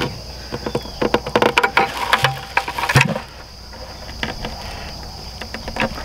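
Clicks and knocks of plastic being handled as a softened hose end is pushed into a hole drilled in a 5-gallon plastic bucket, dense over the first three seconds and sparser after. A steady insect chorus runs underneath.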